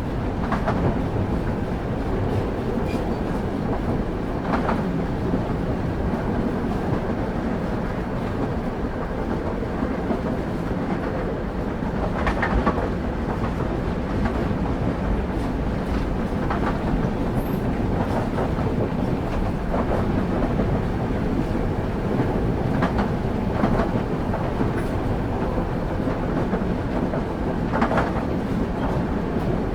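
Railway carriage running along the track, heard from on board: a steady low rumble with a wheel knock over the rail joints every few seconds.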